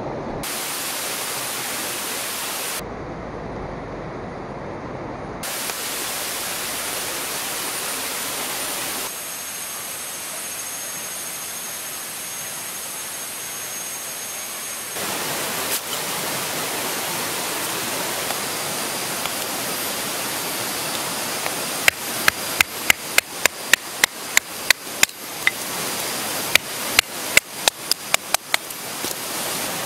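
Rushing water of a rocky stream, its tone shifting abruptly at edits. Near the end comes a quick run of sharp knocks, about three a second with a brief pause, as a knife chops into a wooden stick.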